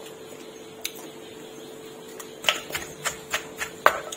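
Wooden pestle and spoon knocking against a clay mortar as long-bean salad is pounded and tossed: one knock about a second in, then a quick, uneven run of about seven sharp knocks near the end, the last the loudest. A faint steady hum runs underneath.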